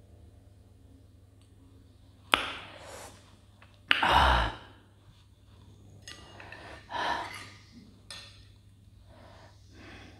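A woman sighing and breathing out heavily several times. The loudest breath comes about four seconds in.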